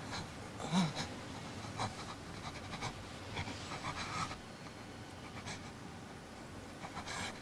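Quiet rustling of a knit balaclava and leather jacket as the mask is pulled off a man lying on the ground. His panting breath comes through, with a short low groan about a second in.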